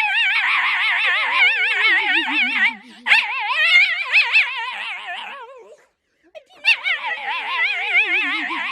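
A dog howling in long, wavering wails, one after another, with a short break a little past the middle.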